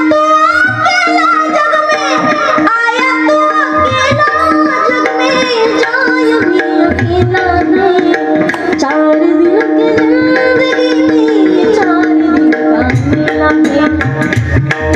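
A woman singing a devotional kirtan song in a high voice full of bends and ornaments, over a steady held drone note and low hand-drum strokes that come in clusters, strongest about four, seven and thirteen seconds in.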